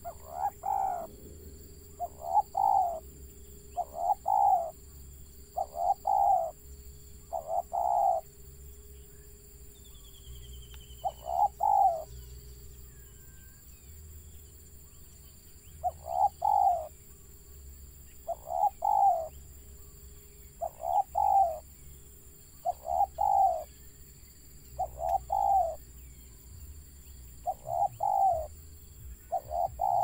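Spotted dove (tekukur) cooing: a short phrase of rolling coos repeated about a dozen times, mostly a couple of seconds apart, with two longer pauses near the middle.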